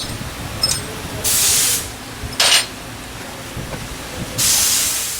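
Air ratchet running in three short bursts, its exhaust air hissing, while the rear support bracket's nuts come off; the second burst is brief, the last the longest.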